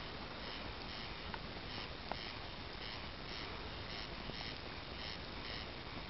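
Outdoor wood bonfire burning with a steady hiss and a few sharp crackles, the loudest pop about two seconds in. Behind it, a high rasping chirp repeats evenly about twice a second.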